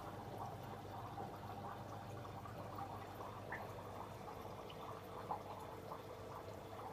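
Faint, steady bubbling and trickling of water in a running aquarium, over a low steady hum.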